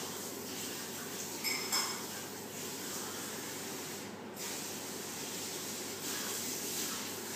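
Steady hiss of background noise, with brief handling noises about a second and a half in.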